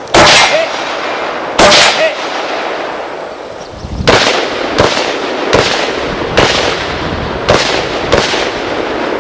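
Two loud AR-15 rifle shots in the first two seconds, each followed by a faint ring of the struck steel target downrange. From about four seconds in comes a string of quieter shots, roughly one every half to one second.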